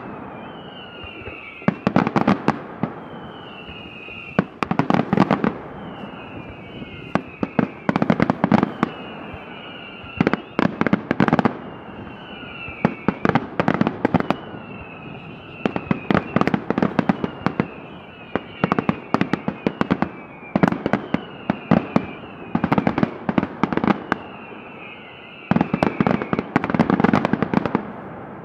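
Daylight fireworks display: aerial shells bursting in rapid volleys of sharp bangs and crackles, a fresh cluster every couple of seconds, with short falling whistles between many of the volleys.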